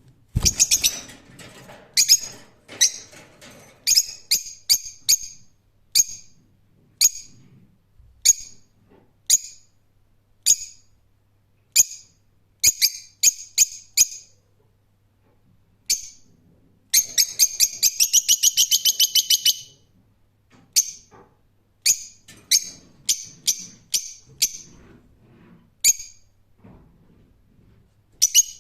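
Lovebird calling in short, sharp, high-pitched chirps, one at a time at irregular intervals, with a fast run of chirps about two-thirds of the way through.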